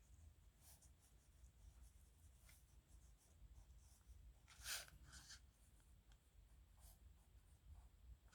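Faint scratching of a nib pen on paper: a series of short writing strokes, with one louder stroke about halfway through.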